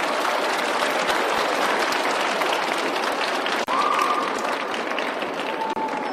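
Audience in an ice-rink arena applauding steadily, with a momentary break in the sound about three and a half seconds in.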